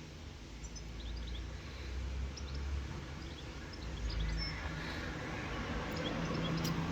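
Quiet outdoor background: a low steady rumble with faint, scattered bird chirps.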